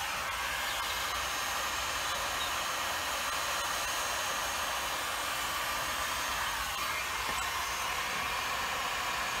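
Electric heat gun blowing steadily, its fan and motor running without a break, while it heats the Aerograph air compressor's pulley so the wheel expands on its shaft.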